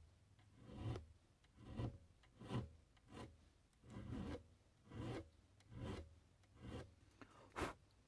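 A small hand file rasping across soft brass in short strokes, about one a second, cutting decorative filework into a pocket knife's spine.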